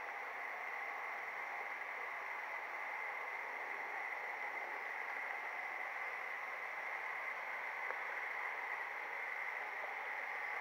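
H0 scale model train running along the track, heard from a camera riding on it: a steady whirring hiss with no rail-joint clicks.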